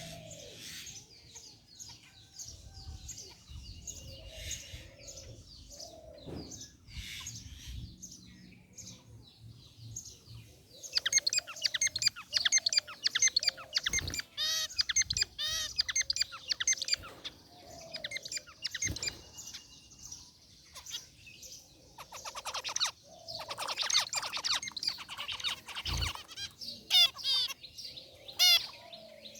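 Zebra finches chirping and singing: scattered quieter calls at first, then dense runs of rapid high chirps from several birds about a third of the way in. A few short thumps sound among them.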